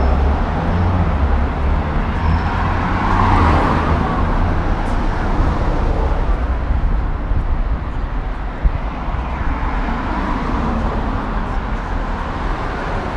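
Steady traffic on a wide multi-lane city avenue, with vehicles passing. It swells about three to four seconds in and again around ten seconds.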